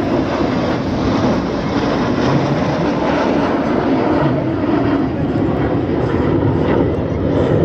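Steady jet noise from a formation of BAE Hawk T1 jet trainers flying a smoke-trailing display pass.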